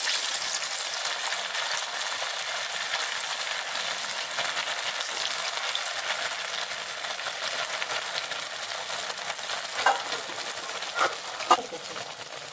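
Sabudana vadas freshly slid into hot oil, deep-frying with a steady dense sizzle and crackle of bubbling oil that eases slightly over time. A few short clicks near the end.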